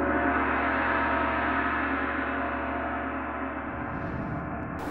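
Gong-like ringing sound effect, a many-toned tone slowly fading and cut off near the end, signalling the start of a timed blitz round on a TV quiz show.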